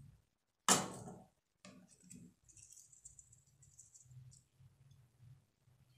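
A stainless-steel mesh strainer knocks sharply against a plastic bowl about a second in, followed by a few lighter knocks and rattles as it is lifted off the bowl of strained oil.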